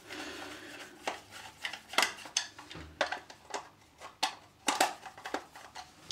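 Irregular sharp clicks and knocks of a hard plastic fan-heater casing being handled and turned over, with a screwdriver against its screws, about ten in all.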